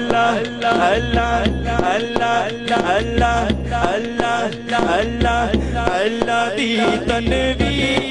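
Devotional naat singing: a male voice carrying a melodic line into a microphone over a steady hand-drum beat.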